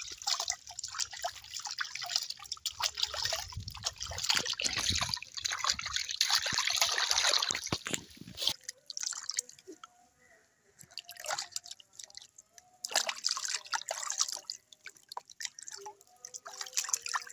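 Water splashing and dripping in a plastic basin as a kitten is washed by hand, with water running off the kitten when it is lifted out. The splashing is continuous for about the first half, then comes in shorter bursts with quiet gaps between.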